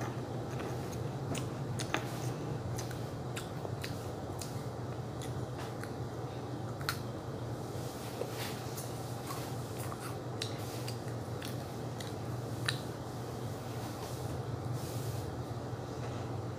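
Someone chewing a crunchy snack close to the microphone: scattered crisp clicks and crunches over a steady low hum.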